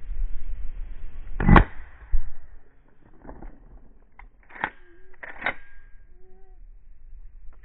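A single loud, sharp bang about a second and a half in, then a lighter knock and a few scattered clicks and knocks. Beagles bay faintly in the second half.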